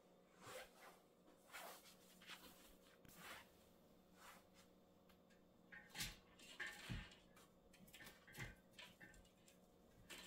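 Faint rustling of a dry branch's twigs with light knocks as it is lifted and pushed back into a vase, and a few soft thumps between about six and eight and a half seconds in.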